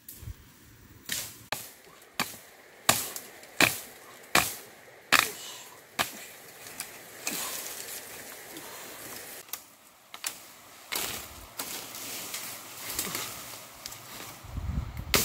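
Machete hacking at bamboo: a run of sharp cracking strikes, about one every three-quarters of a second at first, then more irregular, with rustling of leaves and stems between them.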